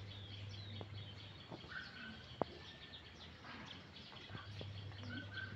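Small birds chirping in many short calls, over a steady low hum, with one sharp click about two and a half seconds in.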